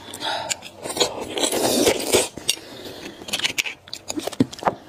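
A thin utensil scraping marrow from inside a cut beef bone: a rough scratching for about two seconds, then scattered short clicks and taps.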